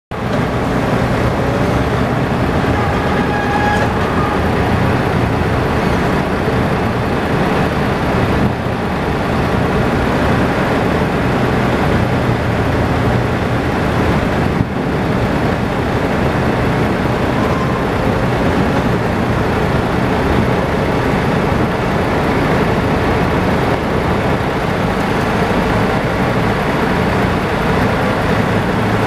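Steady, even engine drone from an idling semi truck and the forklifts working beside it during unloading.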